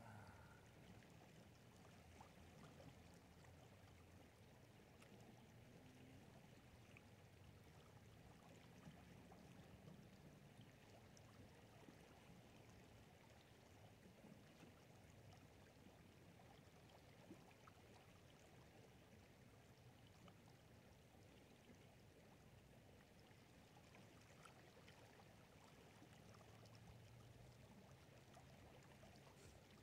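Faint water sounds of gold panning at the river's edge: water sloshing in and pouring off a plastic gold pan over the steady flow of the river, with a few faint clicks.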